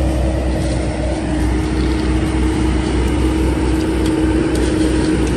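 Asphalt paver's diesel engine running steadily: a constant low hum with a steady whine on top, growing a little stronger near the end.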